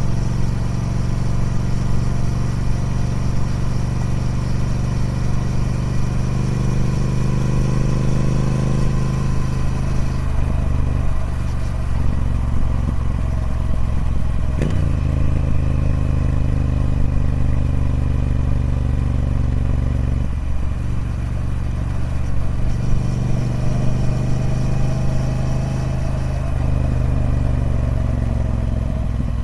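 Triumph Speed Twin 1200's parallel-twin engine running through its stock exhaust. The engine note dips and rises in pitch several times, with a sharp click about halfway through.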